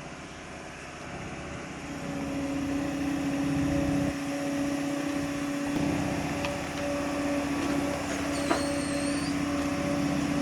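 Sany 265 excavator's diesel engine and hydraulics running as it tracks forward onto a lowboy trailer, with a steady whine, growing louder about two seconds in.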